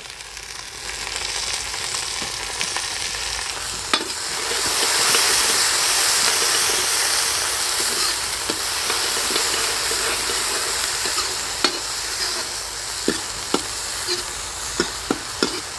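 Chopped onion and greens sizzling in hot oil in a kadhai while a steel ladle stirs them. The sizzle swells a few seconds in, and the ladle clinks against the pan several times near the end.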